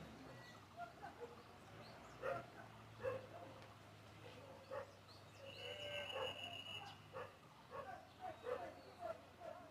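Flock of sheep and goats bleating: faint, short, scattered calls that come thicker in the last couple of seconds.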